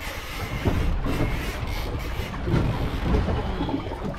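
Wind buffeting the microphone over water noise against a fishing boat's hull at sea, a continuous rough rush with an uneven low rumble.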